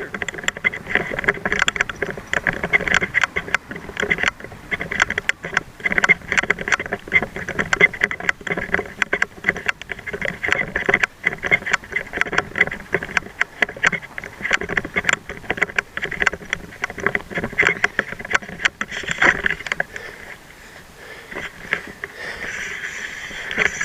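Electric rental scooter rolling over pavement: a continuous jittery rattle and rumble from the wheels and deck, with wind on the microphone, easing off about twenty seconds in.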